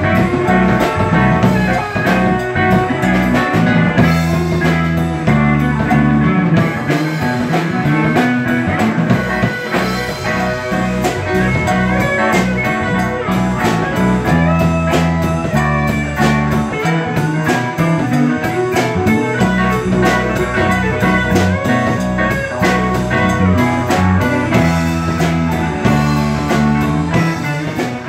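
Live band playing an instrumental passage without vocals: electric guitar, bass guitar and drum kit, with a keyboard, keeping a steady beat.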